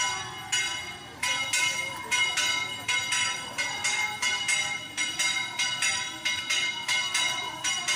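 A bell struck rapidly and over and over, about three strikes a second, each stroke ringing on into the next, over the murmur of a crowd.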